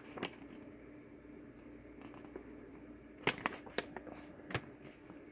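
A few faint clicks and taps over a low steady hum: one near the start, a quick cluster a little after three seconds and one more at about four and a half seconds, from something being handled out of view.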